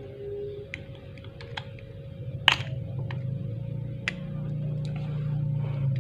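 Scattered light clicks and taps, one sharper than the rest about two and a half seconds in, as a soldering iron's tip works against the pads of an LED bulb's circuit board, over a steady low hum.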